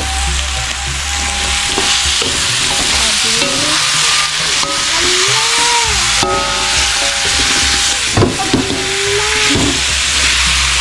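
Boiled chicken feet frying in sambal chili paste in an aluminium wok, a steady loud sizzle, stirred with a metal spatula that scrapes, knocks and squeaks against the pan now and then.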